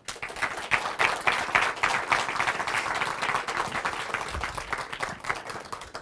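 Audience applauding: dense clapping that starts at once, grows louder over the first second or so, then gradually thins out.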